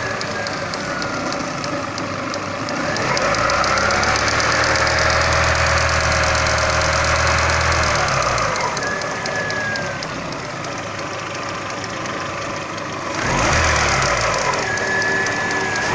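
Car engine running with a fast, even knock from the alternator belt's tensioner pulley, the part the knocking is traced to: a worn tensioner. The engine speed rises a few seconds in and drops back about halfway through.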